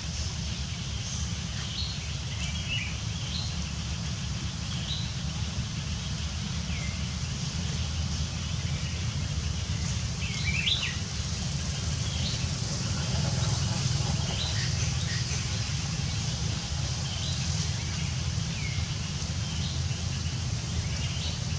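Short, high bird chirps every second or two over a steady low rumble.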